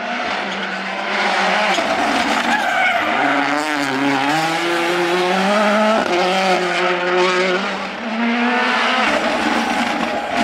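Rally car engines revving hard through a tight bend, pitch rising and falling with throttle and gear changes. The sound breaks off abruptly about six seconds in and another run of revving takes over.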